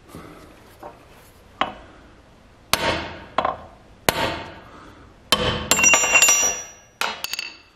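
Ball-peen hammer striking a serrated jaw plate to set it onto an old vise jaw: a series of sharp metal knocks, light at first, then a quick run of blows about two thirds of the way through that rings, and two more blows near the end.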